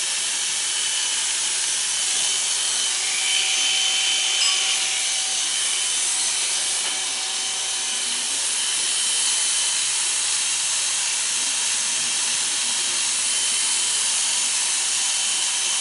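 Corded electric hair clippers running with a steady buzz while they cut short hair at the side of the head.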